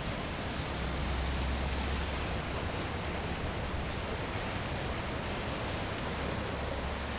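Steady rushing of a creek running in flood, high brown water pouring past trees and over its banks, with a low rumble underneath.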